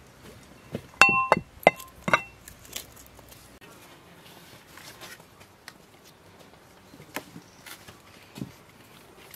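Brass mortar clinking and ringing four times in quick succession as crushed walnuts are knocked out of it into a clay pot. Quieter light knocks and handling noises follow.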